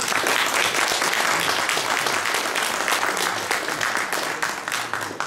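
Audience applauding: dense clapping from a roomful of people, easing off near the end.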